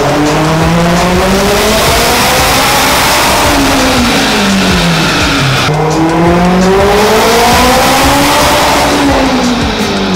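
Turbocharged Honda Civic Si four-cylinder engine at full throttle on a chassis dyno, revving up to high rpm and winding back down twice, once in each half.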